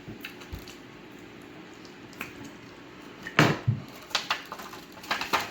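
Close-up eating sounds from someone eating fried chicken: wet chewing and lip-smacking clicks, with a louder sudden sound about three and a half seconds in and a quick run of smacks near the end.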